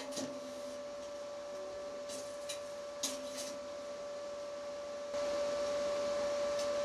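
Steady workshop machine hum with one high tone. Over it come a few light clicks and rattles from a steel tape measure being stretched across a sheet-steel bowl. About five seconds in, the hum gets louder.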